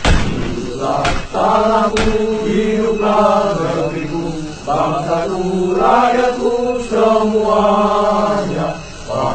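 Slow chanted vocal music in long, held, wavering notes on the soundtrack. Three sharp cracks cut through it in the first two seconds, the first at the very start and the loudest.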